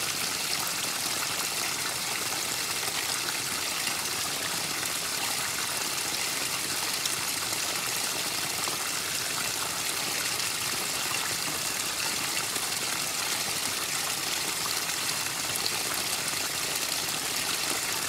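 Water running steadily over a rock in a small cascade.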